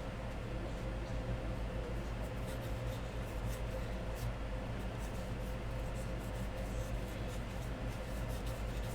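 Faint rustling and light ticking of trading cards and packaging being handled, over a steady electrical hum.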